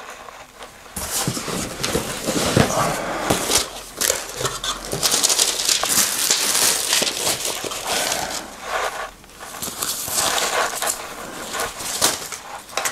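Plastic packaging crinkling and rustling as a thermoactive shirt is unwrapped and handled. The rustling starts about a second in and goes on with short pauses.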